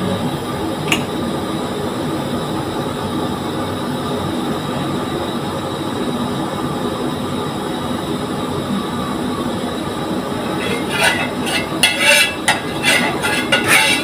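A steady low rumble throughout, and over the last three seconds a metal spatula scraping and clinking against a non-stick frying pan as it spreads cooking oil around.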